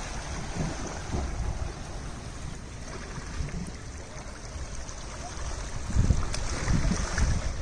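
Small Atlantic waves lapping and washing between rocks at the shoreline, with wind buffeting the microphone, stronger from about six seconds in.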